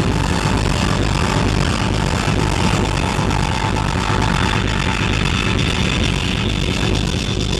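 Loud electronic dance music, steady, with heavy bass.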